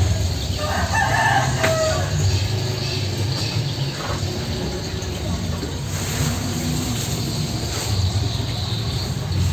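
A rooster crows once, about a second in, over a steady low rumble.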